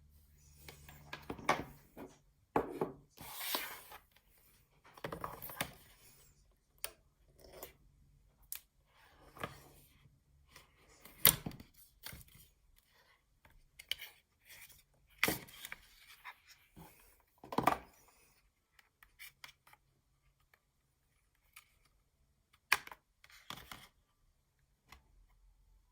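Hands handling a new phone and its box and packaging: scattered taps and clicks with short bursts of paper and plastic rustling and scraping. The sharpest click comes about eleven seconds in.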